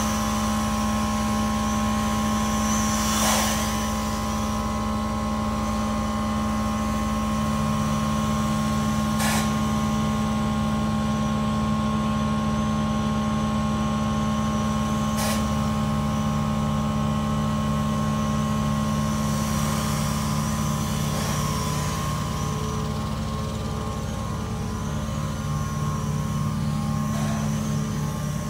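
Steady mechanical hum with several constant tones. Over it, a small quadcopter's propeller whine wavers at times, with a few brief clicks.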